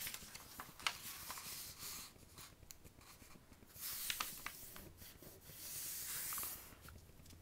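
A sheet of paper being folded by hand: faint paper rustling and rubbing as the fold is lined up and the crease is pressed flat, coming in several short stretches with a few light clicks.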